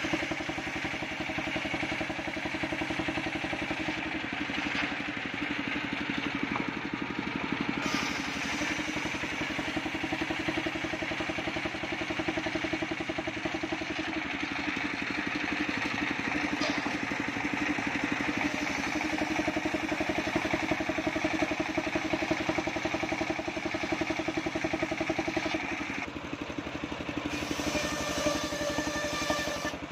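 Engine of a homemade circular saw mill running steadily, with a fast, even firing rhythm. The higher part of the sound drops away about 26 seconds in.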